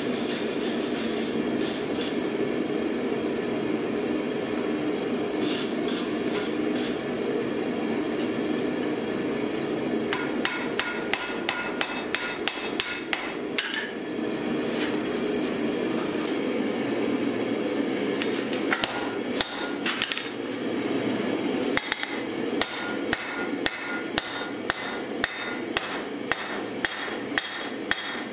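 Hand hammer striking a red-hot steel axe head on an anvil, over a steady low rush. The blows start about a third of the way in and settle into a regular run of about two a second near the end, with a high ring from the anvil.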